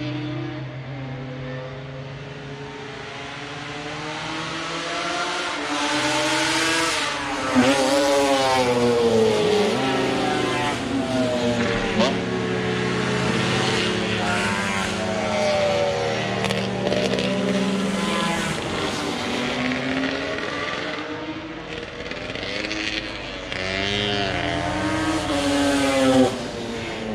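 Classic racing motorcycles passing one after another on the circuit, their engines rising and falling in pitch as they go by. The loudest passes come about seven and a half seconds in, around twelve seconds and near the end.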